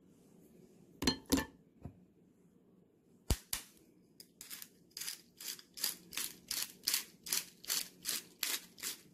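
Knife cutting potatoes on a cutting board: two knocks about a second in and a sharp click a couple of seconds later, then a steady run of cuts, about three a second, from about halfway through.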